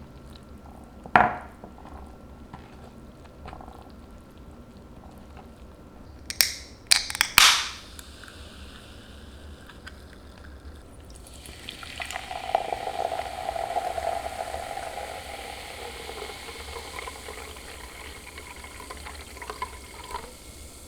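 A sharp clink, then a quick cluster of loud knocks of kitchenware, then food starting to sizzle in a hot pan about halfway in, the hiss slowly fading.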